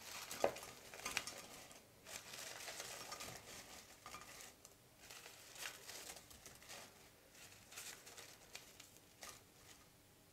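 Faint rustling of a paper towel as fried potato fries are lifted off it by hand and dropped into a glass baking dish, with a few light taps and clicks.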